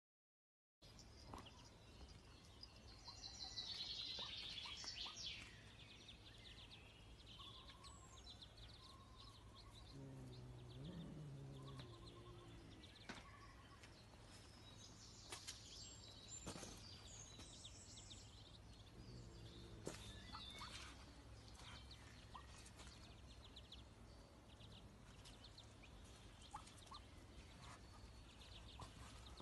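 Ducklings peeping faintly, a cluster of short high chirps a few seconds in, with a low call from the mother duck about ten seconds in and a few scattered clicks.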